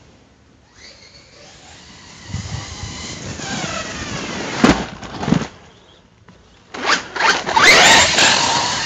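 Brushless electric motor and drivetrain of a Hobao Hyper ST Pro RC truck whining as it speeds up and slows down, its pitch gliding up and down, with two short bursts of throttle about halfway through. Loudest near the end as the truck passes close by.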